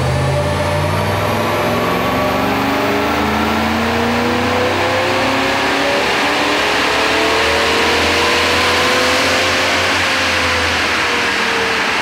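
1999 Holden VT SS Commodore's 5.0-litre V8 at full throttle on a chassis dyno during a power run, its note climbing steadily in pitch for about ten seconds as the revs rise, then dropping away near the end.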